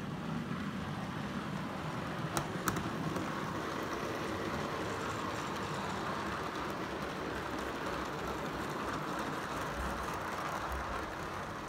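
OO gauge model freight train running past on the track: a steady rumble of small wheels on rail and the locomotive's motor, growing brighter as the wagons roll by close. Two sharp clicks about two and a half seconds in.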